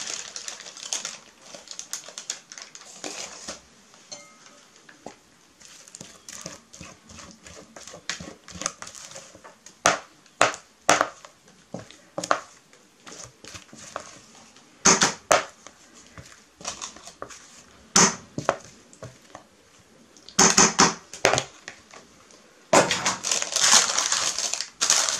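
Spatula scraping and tapping against a mixing bowl as cake batter is scraped out into a cake tin, in scattered short scrapes and clicks. Near the end come longer rustling stretches as the parchment-lined tin is handled.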